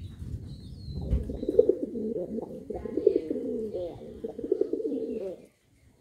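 Domestic pigeons cooing: several overlapping, wavering low coos that stop abruptly near the end, after a low rumble in the first second.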